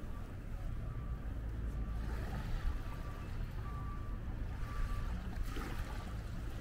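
Seaside outdoor ambience: a steady low rumble with a faint wash of water, two brief swells of noise, and a faint short high beep repeating through it.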